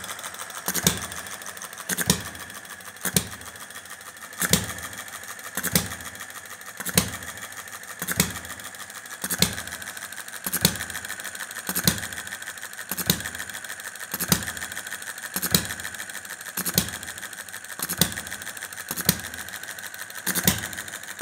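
Model Witte single-cylinder stationary engine running on the bench, its flywheels spinning. A sharp pop comes about every second and a quarter, with fast light mechanical ticking between.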